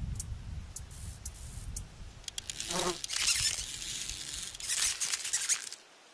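A brief buzzing chirp about three seconds in, then a dry rustling, crackling hiss over a low wind rumble, all dropping away near the end.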